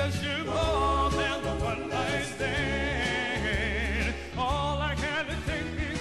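A male soul vocal group singing live, with voices wavering in vibrato over a steady bass line and drums.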